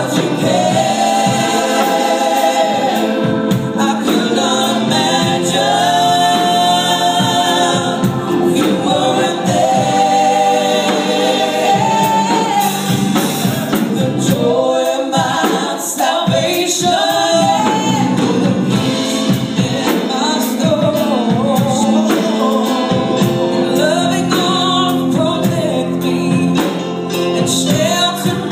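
A woman singing a gospel song into a microphone, with held, sustained notes, over a live band with keyboard accompaniment.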